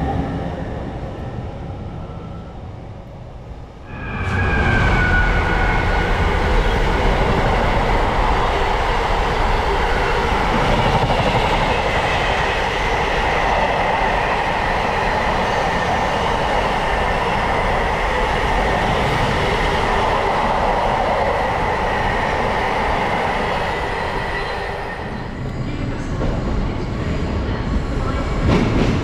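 Train passing close by: about four seconds in, a loud rush of rail noise starts suddenly and lasts some twenty seconds with a steady whine over it, then eases off.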